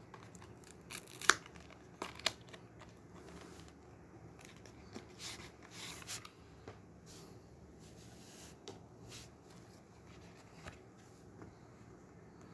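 Box packaging being opened by hand: rustling and tearing of wrapping, with a sharp click about a second in and a couple of smaller clicks just after.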